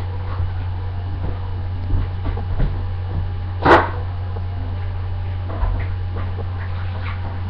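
Dishes and utensils clinking and knocking now and then at a kitchen sink over a steady low electrical hum, with one short, louder sound a little past halfway.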